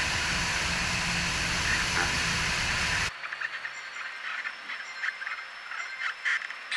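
Steady rush of airflow and engine noise from a Piper PA-28 in flight low over the runway, heard from a camera under the wing. It cuts off suddenly about three seconds in, leaving a much quieter stretch with faint scattered clicks.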